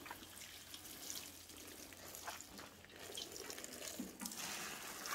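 Water sprinkling from a metal watering can's rose onto wet potting soil and shade cloth: a faint, even spray hiss with scattered drips, a little louder near the end.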